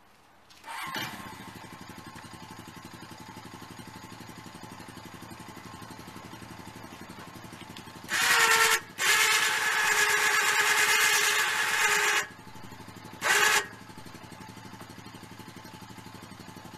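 ATV winch winding in its cable to raise a front-mounted game hoist. A steady mechanical running starts about a second in, with much louder pulling from about eight to twelve seconds in and again briefly near thirteen.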